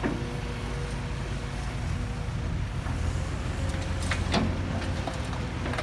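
Kobelco SK200 excavator's diesel engine running steadily under working load. About four seconds in, a bucketful of soil and clods drops into a steel dump-truck bed with a short cluster of thuds and clatters.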